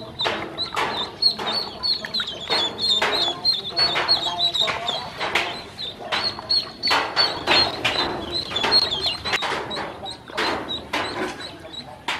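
A group of yellow ducklings peeping continuously in short high chirps. Frequent short sharp sounds, about one or two a second, come through as they dabble in shallow water.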